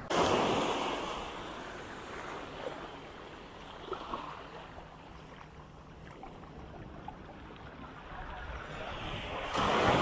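Small waves breaking on the beach. A wash of surf comes in at the start and fades over a couple of seconds, and another wave breaks near the end.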